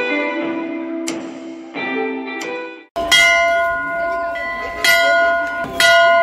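Background music with plucked notes, then from about three seconds in a metal bell struck three times, each strike ringing on in steady tones.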